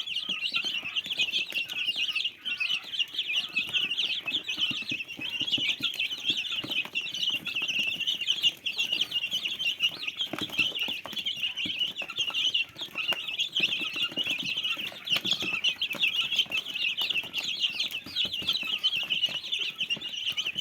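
A flock of chickens calling, many high chirping peeps overlapping without a break, with scattered light taps underneath.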